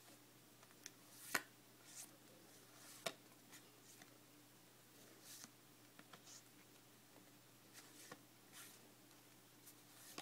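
Faint swishes and light flicks of Yu-Gi-Oh trading cards being slid one at a time off the front of a hand-held stack, at irregular intervals of about a second, over a low steady hum.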